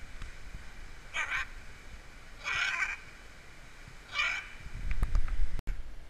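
Scarlet macaw giving three short, harsh squawks about a second and a half apart. Near the end a louder low rumble with a few clicks comes in and then cuts off suddenly.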